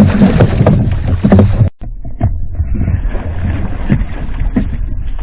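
A loud, noisy burst that cuts off sharply about a second and a half in, followed by the steady rumble and rush of a boat running on the water.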